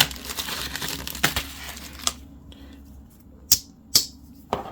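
A slip joint pocketknife slitting the packaging on a small box with a scratchy rasp for about two seconds, then three sharp clicks about half a second apart.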